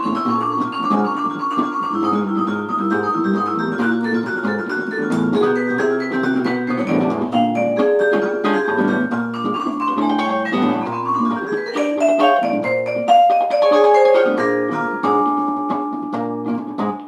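A band playing music: a run of quick melodic notes over percussion hits, getting softer near the end.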